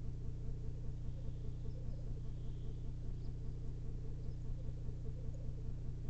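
Male black grouse at a lek: a continuous low bubbling, cooing chorus with an even pulsing, and a faint hiss about two and a half seconds in.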